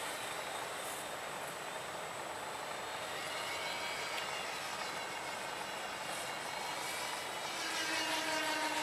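Motor of a small RC model Avro Vulcan flying past: a pitched whine over a steady hiss that fades as the plane moves off, then grows louder again about seven and a half seconds in as it comes back, its pitch sliding.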